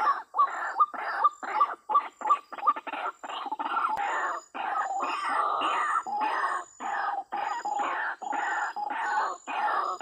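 White-breasted waterhens (ruak-ruak) calling loudly. A fast run of short notes, about three or four a second, gives way after about three seconds to longer calls repeated roughly once a second.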